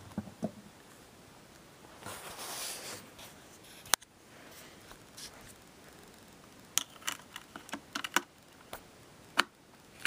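Handling noise from pulling a hard case off an iPod Touch and seating the bare iPod on a dock. A rustle comes about two seconds in, then a sharp click about four seconds in, then a run of small clicks and taps.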